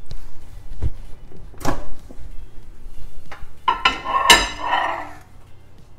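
A few separate knocks and clinks as a ceramic ramekin is set inside a microwave oven and the microwave door is shut. The sharpest knock comes about four seconds in.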